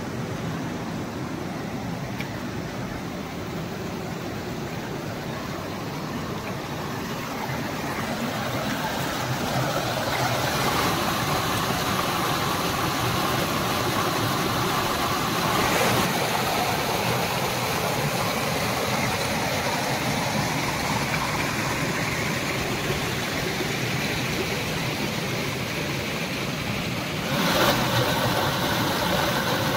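Water rushing steadily over rocks in a shallow stream, with a small cascade pouring over a rock ledge and splashing into the pool below. The rush grows louder from about ten seconds in and again shortly before the end.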